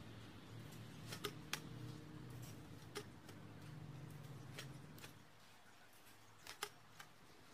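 Faint sharp clicks from a hand-held seedling transplanter being worked, a few scattered and a close pair near the end, over a low steady hum that fades out about five seconds in.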